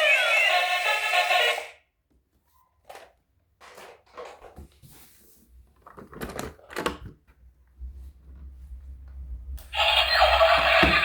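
Background music that cuts off about two seconds in, followed by a few scattered short clicks and knocks and a low rumble; the music comes back near the end.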